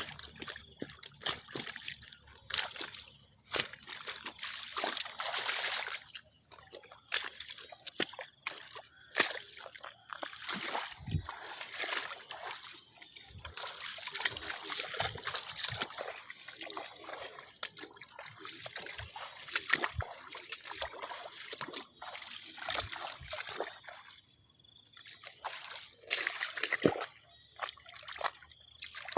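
Floodwater trickling and splashing, with irregular sloshes and sharp splashes throughout.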